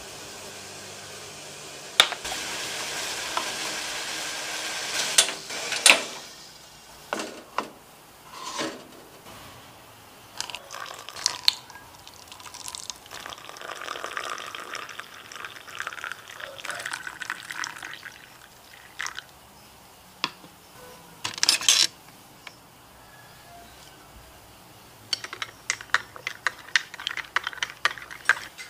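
Water poured into a glass, with scattered knocks, then a metal spoon stirring a drink and clinking quickly against the glass near the end.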